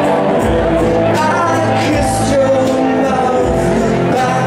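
Live rock band playing: electric guitar over a steady drum beat, with a man singing into the microphone.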